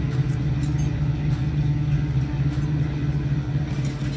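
Race car engine running at a steady pitch, a continuous low drone.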